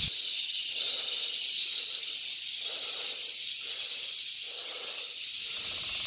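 Steady high-pitched outdoor hiss, with soft lower whooshing sounds that come and go about once a second.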